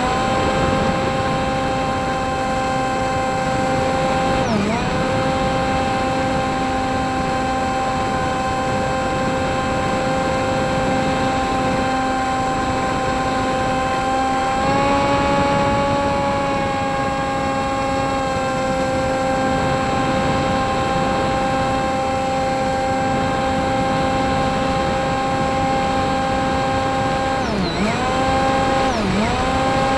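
RC plane's motor and propeller, heard from the onboard camera, with a steady whine and rushing wind. The pitch briefly drops and recovers about four seconds in and twice near the end, where the throttle is eased and reopened, and steps up slightly about halfway through.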